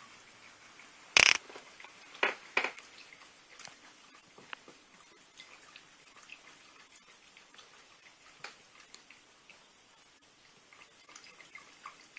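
Welsh corgi lapping water from a bowl while lying upside down: a run of small, irregular wet clicks, with three louder clicks between about one and three seconds in.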